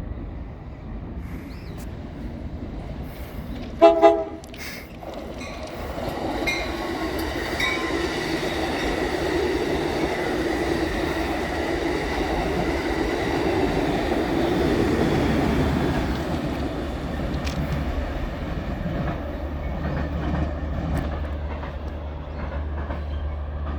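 Train horn sounding two quick short blasts about four seconds in, then a train rolling past on the rails, building up, loudest around the middle and easing off.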